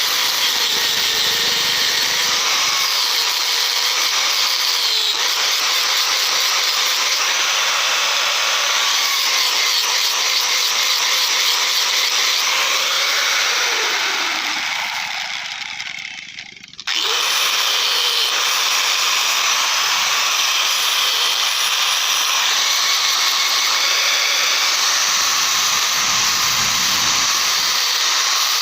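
A power tool running steadily with a dense, high hiss. It fades away about halfway through, then cuts back in abruptly and runs on.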